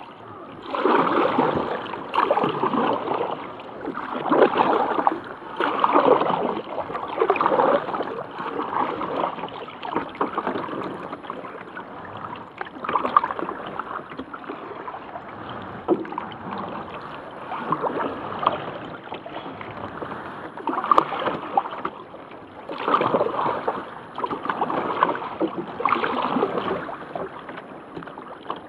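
Kayak paddle strokes in calm water: the blades dip and splash in a steady rhythm, about one stroke every second and a half to two seconds, with water running along the hull between strokes.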